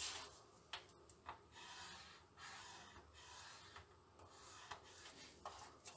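Faint rubbing strokes of a bone folder scoring card along the grooves of a Scor-Pal scoring board, with a couple of light taps about a second in.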